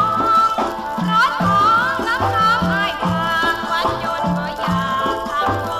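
Thai song recording: music with a lead melody of sliding, ornamented notes over a steady bass beat.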